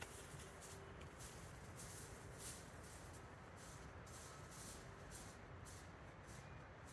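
Faint campfire crackling: soft, irregular ticks and pops a few times a second over a low, quiet forest background.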